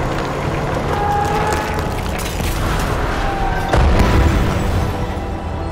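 Sound-effect crash of a truck ramming a car: a heavy, low boom about three and a half seconds in, with music playing throughout.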